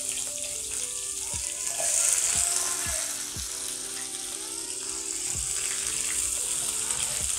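Sliced onions sizzling as they fry in hot oil with whole spices in a nonstick pan, the hiss swelling about two seconds in and then settling, stirred with a spatula near the end.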